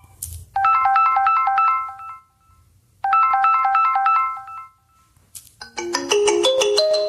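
Samsung Galaxy S25 Ultra ringtones being previewed: a quick, bright melody of rapid notes plays twice with a short gap between. After a click near the end, a different, lower and fuller ringtone begins.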